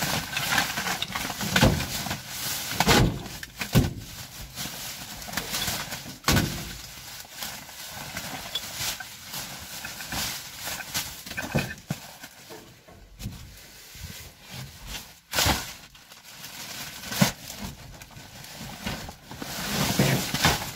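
Black plastic rubbish bag crinkling and rustling as gloved hands rummage through it, with irregular knocks and clatter from cards, cables and other items shifting inside.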